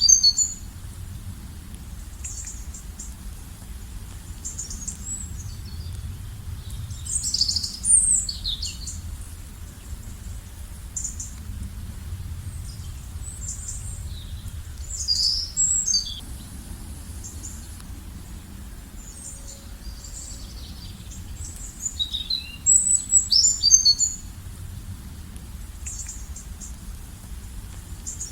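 Songbirds singing: a bout of high, quick chirping phrases every seven seconds or so, each lasting a second or two, over a steady low rumble.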